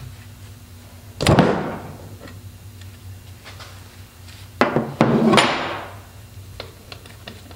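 Hard metal knocks, each with a short ringing decay: one about a second in, then two close together about three and a half seconds later, the second ringing longest.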